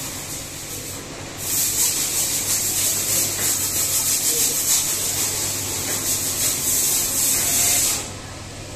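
Brother industrial single-needle lockstitch sewing machine stitching fabric at speed: a fast, even, hissing rattle that starts just over a second in and stops sharply about eight seconds in, over a low steady hum.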